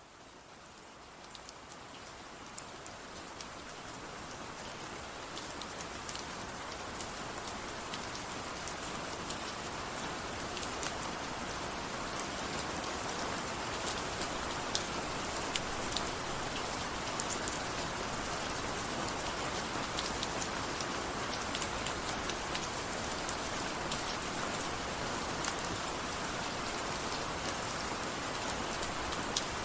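Steady rain falling, an even hiss with the sharp ticks of individual drops striking a surface. It fades in over the first several seconds.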